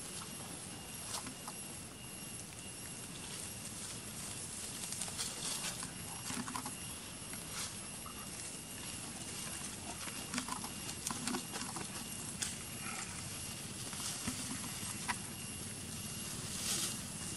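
Macaques eating chopped fruit from a metal tray: scattered light clicks, taps and mouth sounds, one every second or two, over a steady background hiss with a faint high whine.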